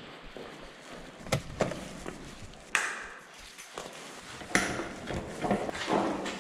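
Sharp knocks and rattles of bicycles being handled and pulled out of a crowded rack, about six distinct clanks, in a bare concrete room.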